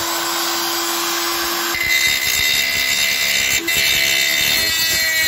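Parkside PGS 500 A1 500 W corded die grinder running at high speed with a steady whine. About two seconds in, its cone-shaped mounted point bites into the car's sheet-metal sill and the sound turns to rough grinding under load.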